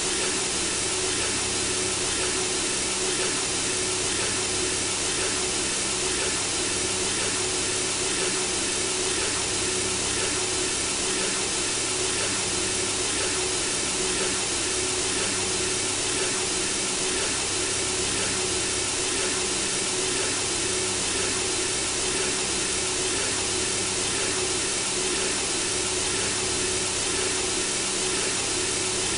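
Synthesizer-generated white noise for lulling a baby to sleep: a steady, even hiss with a faint low hum beneath it, unchanging throughout.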